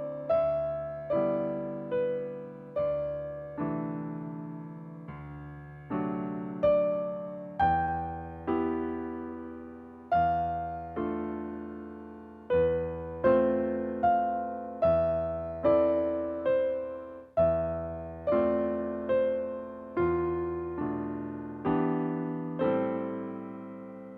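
Solo piano playing slow, gentle chords, each struck and left to decay, with the final chord fading near the end.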